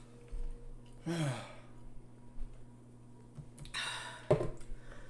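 A person sighs about a second in, the voice falling in pitch, then gives a second, louder breathy exhale near the end, followed at once by a short sharp knock.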